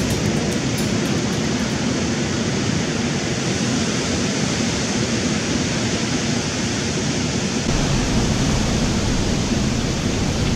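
Ocean surf washing up a steep pebble beach, a steady rush of breaking and receding water. About three-quarters of the way in a deeper low rumble joins.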